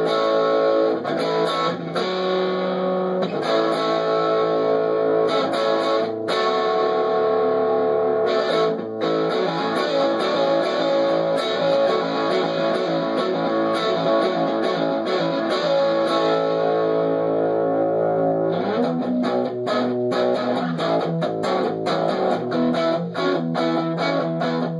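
Gibson Les Paul Studio '70s Tribute electric guitar with mini-humbucker pickups, played with a 1970s Marshall-style distorted tone. Sustained distorted chords and notes ring out, turning to choppier, clipped rhythm strokes about three quarters of the way through.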